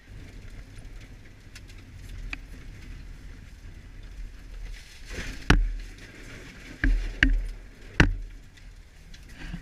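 Cabin noise of a 1994 Mazda Miata on an ice racing course: a steady low engine and tyre rumble. About halfway through come four heavy thumps, the car's body jolting over rough snow and ice, the first and last the loudest.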